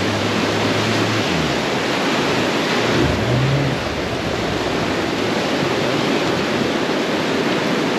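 Steady rushing of fast mountain-river water over rocks, an even loud noise with no letup. A low motor hum sounds for about the first second, and a brief low tone comes near the middle.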